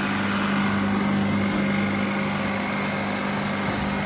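Refrigerant recovery machine running steadily, pumping refrigerant out of the air conditioner into a reclaim bottle: an even motor-and-compressor hum with a strong low tone.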